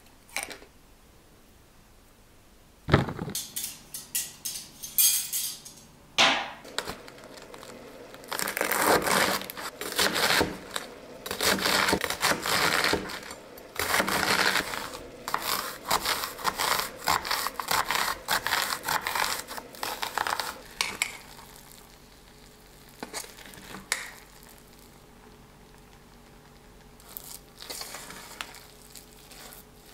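Kitchen handling noises: a sharp knock about three seconds in, then a busy stretch of rustling, scraping and clattering of dishes, cutlery and packaging that dies down to a few scattered clicks in the last third.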